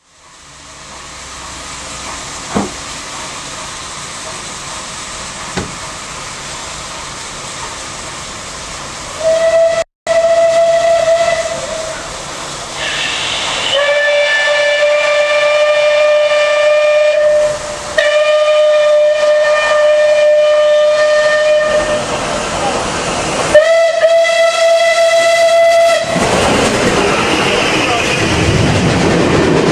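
Steam locomotive whistles sounded in several long blasts at two slightly different pitches as two steam trains meet, over the running noise of a train heard through an open carriage window. Near the end, the rush of the oncoming steam locomotive and its train passing close alongside.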